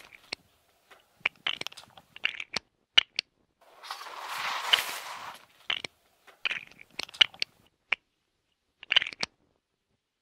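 Plastic Lego bricks clicking and clattering in quick irregular clacks as pieces are handled and snapped together. About four seconds in there is a longer crunchy rustle, like loose bricks being stirred.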